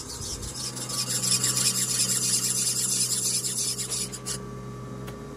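Rotary surface grinder's abrasive wheel grinding the face of a hydraulic swing motor's valve plate: a steady hissing rasp over the hum of the machine's motor. The grinding stops abruptly about four seconds in, while the motor hum carries on.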